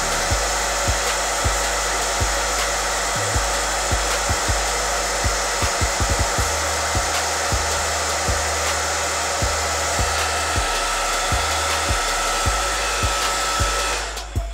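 Handheld hair dryer blowing steadily, a rush of air with a faint steady whine in it, switched off near the end.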